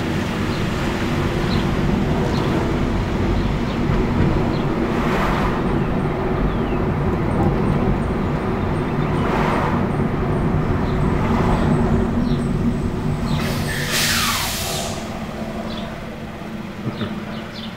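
Rear-loader garbage truck's diesel engine running steadily as it creeps along in stop-and-go collection, heard from a car following close behind. Its air brakes hiss three times, about five, nine and fourteen seconds in, the last the loudest.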